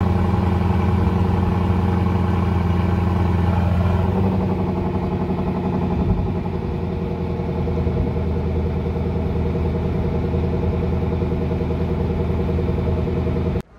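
Lexus LC500's 5.0-litre V8 idling through its exhaust, a deep steady note. The idle drops a step about four seconds in and again around six seconds, then holds steady until it cuts off suddenly near the end.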